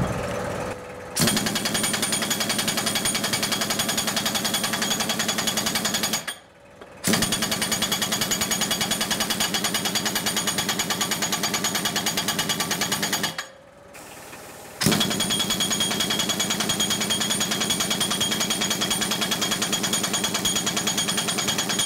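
Large pneumatic impact wrench hammering in three long runs of about five to six seconds each, with short pauses between. It is trying to break loose a stubborn nut on the piston end of an excavator hydraulic cylinder rod that will not come undone.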